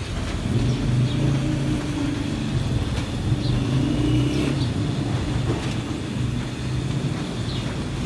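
A motor or engine running steadily with a low hum.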